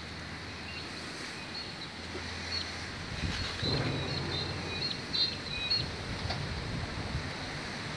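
Outdoor wind buffeting the microphone, with a gusty rumble about three seconds in. A low steady hum fades out before that, and a run of faint, short, high chirps comes in the middle.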